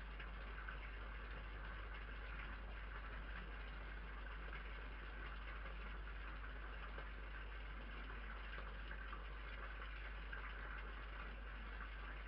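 Steady hiss from a security camera's microphone, with a constant low hum beneath it.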